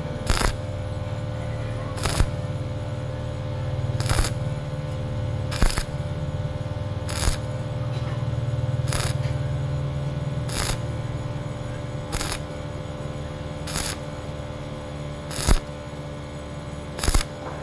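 Stick-welding arc struck in short bursts, each lasting a fraction of a second, about every second and a half over a steady hum. This stop-start pattern is typical of stitch welding thin galvanized pipe to keep from burning through it.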